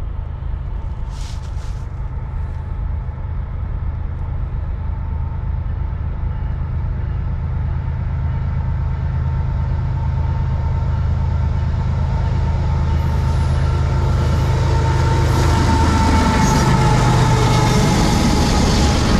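GE ES44AC-H diesel-electric locomotive approaching at slow speed, its V12 diesel engine humming steadily and growing louder. Wheel-on-rail noise rises near the end as it comes alongside.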